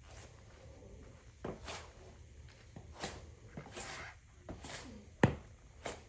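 Footsteps in sneakers on a hard floor: irregular soft steps and scuffs, with one sharp knock about five seconds in.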